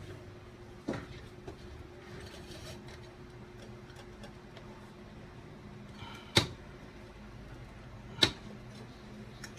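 Three sharp clicks or taps from handling computer hardware during repair, the first about a second in and the other two near the end, over a steady low hum.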